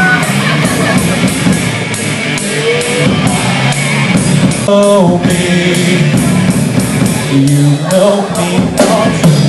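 Live rock band playing: electric guitars and drums with a singer, loud.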